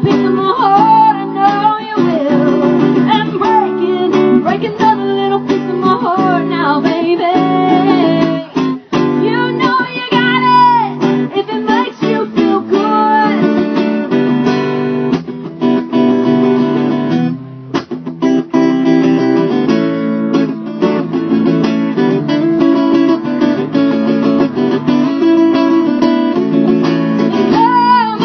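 Live acoustic guitar strummed under a singing voice. The singing thins out about halfway through while the guitar keeps strumming, and the voice comes back near the end.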